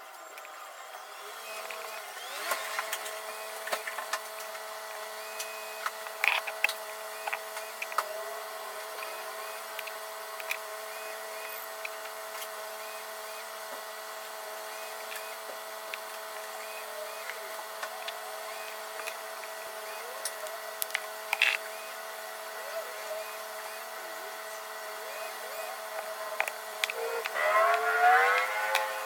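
Steady whir of a small motor-driven machine, with scattered sharp clicks and taps, and a short rising whine near the end.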